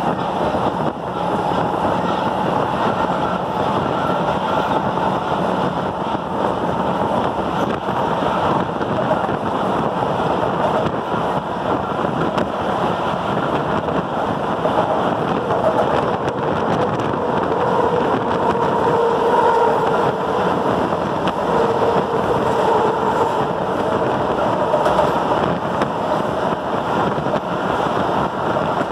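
Metro train running through a tunnel, heard from inside the car by the door: a steady loud roar and rumble of wheels on rails. Over it runs a whine that wavers slightly in pitch.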